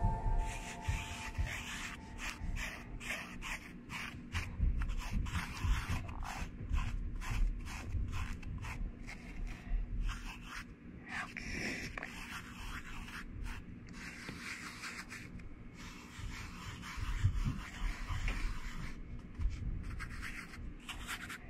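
Fingers pressing and rubbing glitter into a sheet of slime: a run of irregular sticky crackles and small pops with soft low squishes.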